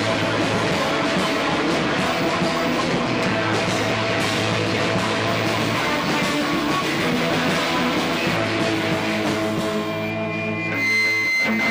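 Live rock band playing loud, with distorted electric guitars. Near the end the playing thins out to a few held notes and a steady high tone.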